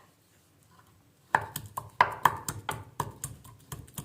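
Garlic cloves being pounded: a run of sharp knocks, about four a second, starting about a second and a half in.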